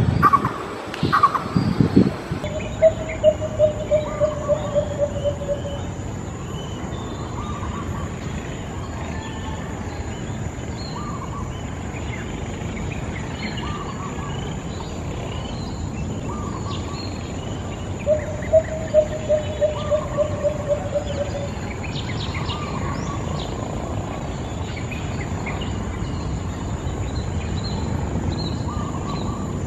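Lesser coucal song given twice, each a run of sharp notes that come faster and slightly lower as they fade, in the cadence of a bouncing ball. Other small birds chirp and an insect drones steadily on a high note in the background.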